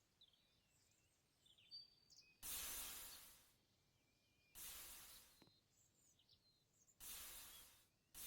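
Squishy foam toy being squeezed: three soft hissing rushes about two seconds apart, each fading over about a second, with faint high squeaks in between.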